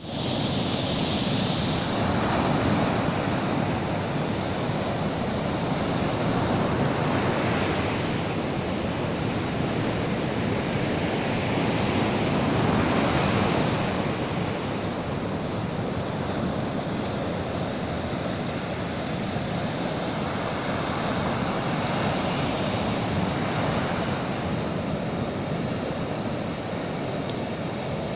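Sea surf washing steadily onto the shore, swelling and easing every few seconds, with wind buffeting the microphone.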